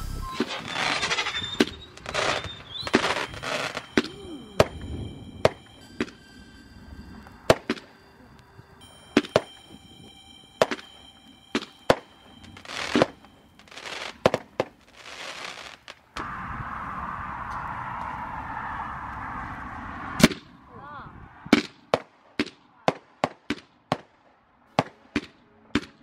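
Fireworks going off: an irregular string of sharp bangs and crackles from bursting shells, with a steady hiss lasting a few seconds past the middle.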